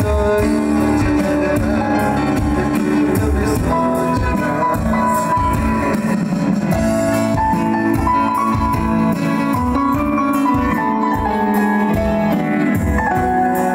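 Live band music led by a strummed acoustic-electric guitar, with keyboard and a steady beat.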